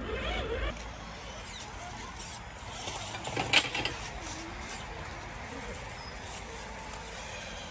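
Small electric motor of a radio-controlled scale crawler truck whirring as it crawls over the dirt course, with a single sharp knock about three and a half seconds in.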